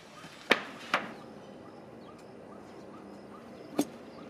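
Three sharp knocks: two half a second apart about half a second in, and a third near the end.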